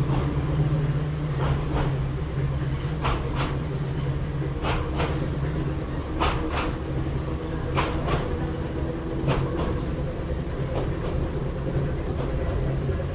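Interior running sound of the Kambara Railway electric railcar MoHa 31 under way. A steady low hum is broken by wheels clicking over rail joints in pairs, about every one and a half seconds.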